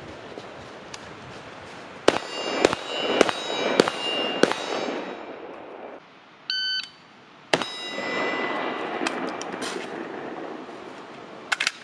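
Rifle shots, a quick string of five about half a second apart, each followed by the metallic ring of a struck steel target and a trailing echo. A short electronic beep comes about halfway through, then a few more shots with target rings.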